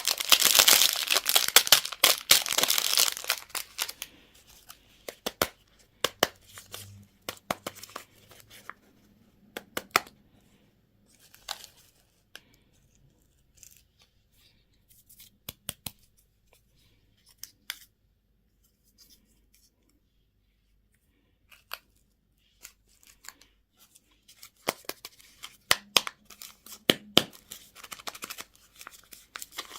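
Plastic candy wrapping being torn open and crinkled, in a dense burst in the first few seconds. After that come scattered clicks and rustles, a pause of a few seconds, and another burst of crinkling near the end.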